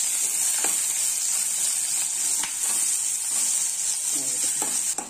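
Sliced onions sizzling in hot oil in a non-stick kadai, with a few light clicks of a steel spoon against the pan. The sizzle drops off near the end.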